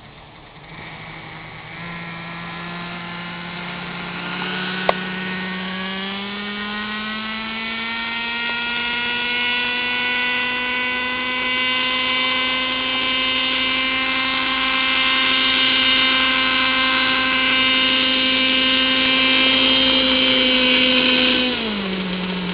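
Raptor 30 RC helicopter's .30 nitro glow engine and rotor head running, with the pitch climbing over the first several seconds as it spools up to flying speed and then holding steady while it hovers. Near the end the engine note drops sharply as it is throttled back on landing. A single sharp click comes about five seconds in.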